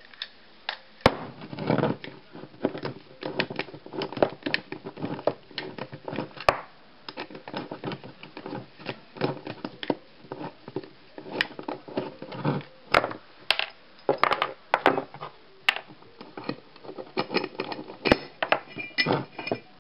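Allen keys turning the axle bolt of a scooter wheel in its fork: irregular metal clicks, scrapes and rattles, with a few sharper knocks.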